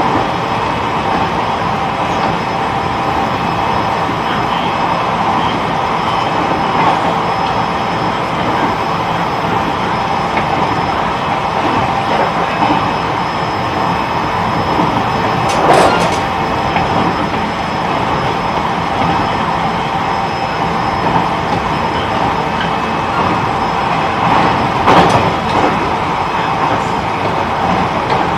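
Running sound of an E129 series electric multiple unit heard from inside the car, travelling at speed: a steady rolling rumble with faint steady tones. Two sharp clacks stand out, about 16 and 25 seconds in.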